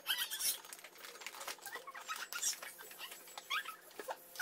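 Plastic snack bags crinkling and rustling in short, irregular crackles as they are handled.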